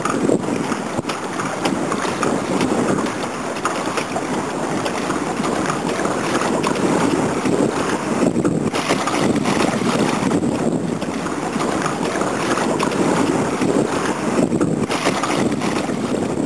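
Steady wind rushing over the microphone, with choppy lake water splashing around the wooden hull of a radio-controlled model sailboat as it cuts through the waves.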